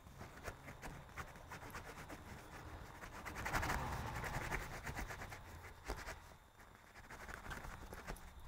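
Rustling and small clicks of hand work as thin electrical wires are pushed into a camper's canvas, with a louder rustling stretch about three and a half seconds in.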